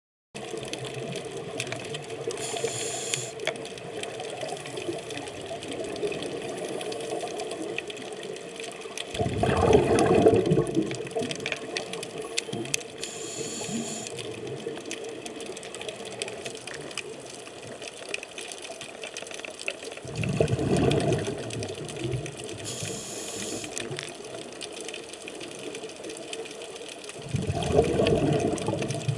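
Scuba regulator breathing heard underwater: three loud bubbling bursts of exhaled air, each about two seconds long, over a steady underwater rumble, with brief high hisses between them.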